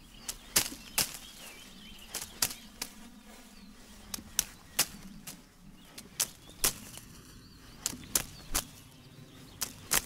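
Punches thrown in one-two combinations of a straight then a hook, each blow giving a sharp snap or slap. The blows come in pairs about every two seconds.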